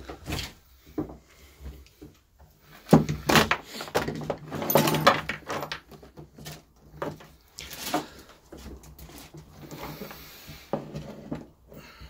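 Hand tools knocking and clattering on a wooden workbench as a pair of bolt croppers is picked up and handled, with a busier stretch of rattling about three seconds in.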